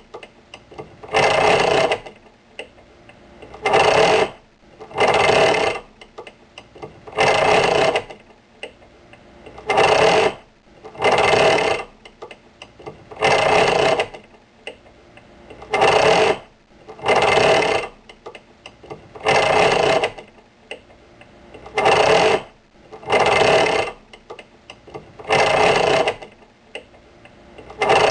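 Light metal chains rattling in short shakes, one rattle a little more than once a second at a steady pace, with faint clinks between the shakes.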